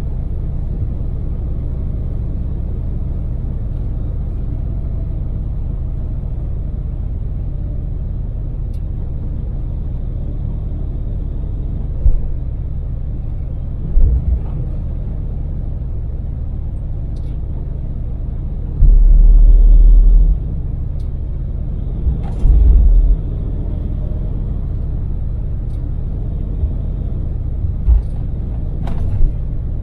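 Daewoo Damas LPG microvan cruising on an expressway: its small three-cylinder engine and the road noise make a steady low rumble. A few loud low thumps break in, the longest lasting over a second about two-thirds of the way through.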